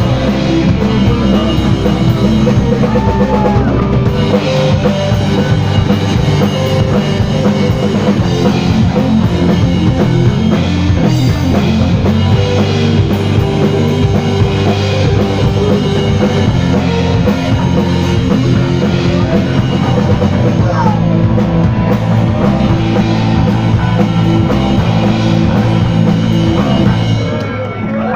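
Live rock band playing loud: electric guitars, bass guitar and a drum kit, with the level dipping briefly near the end.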